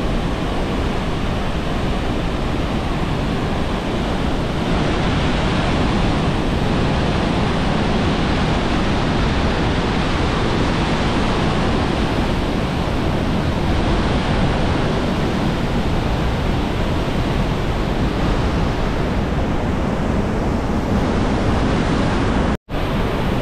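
Steady rush of Niagara Falls' water pouring down, heard close up. The noise is loud and even, with no rhythm, and it cuts out completely for an instant near the end.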